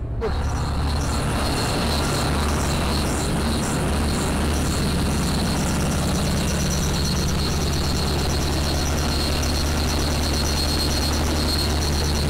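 Diesel generator set's engine running steadily at constant speed, heard up close at the open enclosure. It has just started and is running with no load while it synchronises to the site's solar-diesel hybrid system. A steady high whine runs through the engine noise.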